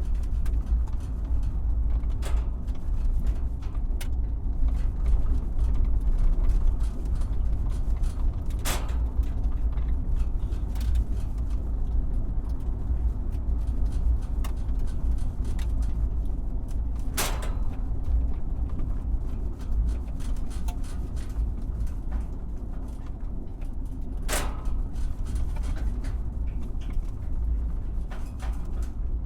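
Car driving over a bumpy road: a steady low rumble from the tyres and suspension, with body creaks and a few sharp knocks and rattles as it hits bumps, about three strong ones spread several seconds apart.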